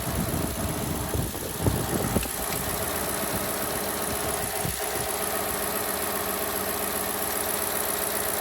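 Ford 10R80 ten-speed automatic transmission whining: a steady, loud whine of several held tones over the running drivetrain, which the owner calls really noisy. A few sharp knocks come in the first two seconds.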